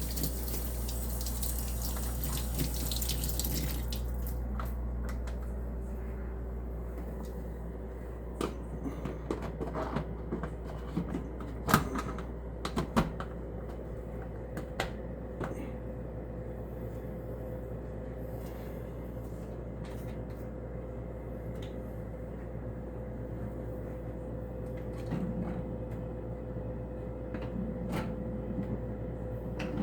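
Water running from a tap for about four seconds, then shut off, followed by scattered clicks and knocks of things being handled, the loudest two about a second apart, over a steady low hum.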